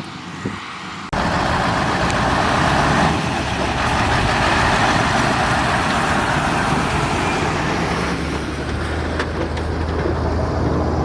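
Heavy diesel construction machinery running. The level jumps suddenly about a second in to a loud rushing noise over the engine drone; the noise eases about eight seconds in, leaving the steady engine drone.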